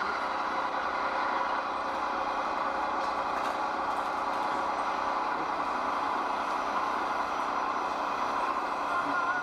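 Radio-controlled model trucks running, giving a steady truck-engine sound with very little deep bass.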